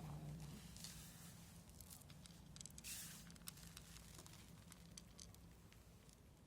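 Near silence with faint scattered small clicks and a brief soft rustle about three seconds in, over a low steady hum.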